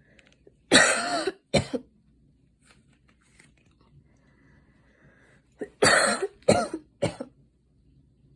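A young woman coughing after a run, in two bouts: two hard coughs about a second in, then three more in quick succession near the six-second mark.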